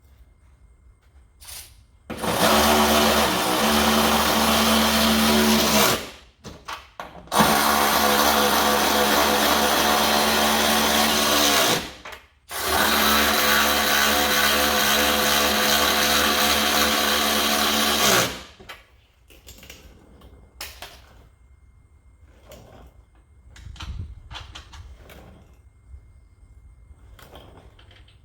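Small power tool running 13 mm nuts onto the side-step mounting studs, in three runs of about four to six seconds each, its motor pitch dropping as each run stops. After that come light clicks and knocks of handling.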